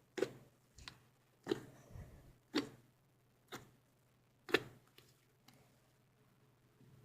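Slime being squeezed and worked in the hands, giving a series of short, sharp pops at irregular intervals, about eight in the first five seconds.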